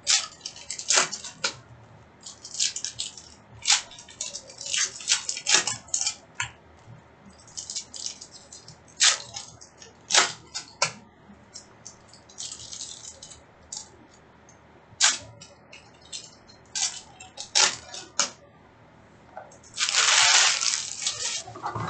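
Hockey trading-card packs being handled: a run of short crinkles and rustles from foil wrappers and cards, with a longer, denser rustle near the end.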